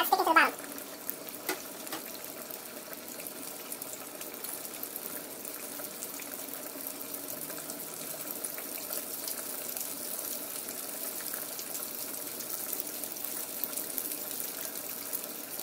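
Hot oil sizzling and bubbling steadily as breaded jackfruit pieces deep-fry in a pot.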